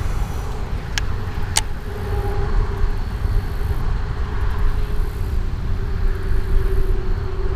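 Wind buffeting the microphone on open water: a steady low rumble with a faint steady hum beneath it, and two sharp clicks about a second in.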